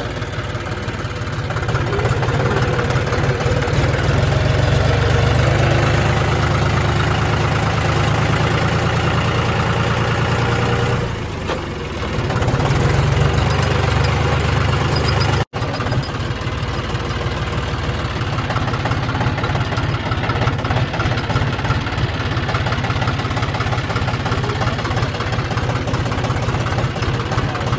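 John Deere tractor's diesel engine running under way, picking up about two seconds in, easing off briefly near the middle and then pulling steadily again. There is a momentary dropout just past the middle.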